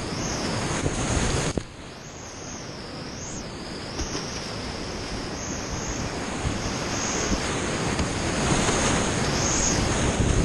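Whitewater rapids rushing around a kayak, heard close up on a camera microphone with water and wind buffeting it. The rush drops sharply about one and a half seconds in and builds again toward the end.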